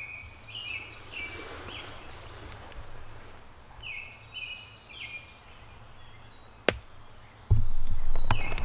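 A bird calling in two short runs of quick high notes, each note stepping down in pitch. Near the end comes a single sharp click, then loud rustling and handling noise close to the microphone.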